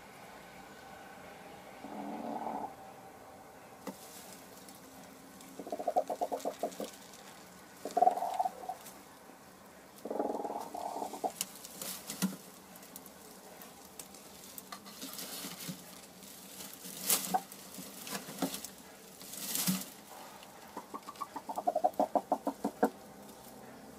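A Sussex hen on the nest while laying, making short bursts of low, rapid clucking trills five times. In the middle, straw crackles and rustles as she shifts around in the nest.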